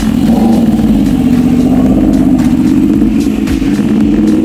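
Yamaha R1 sportbike's inline-four engine running hard while riding, its note holding fairly steady and climbing slightly near the end.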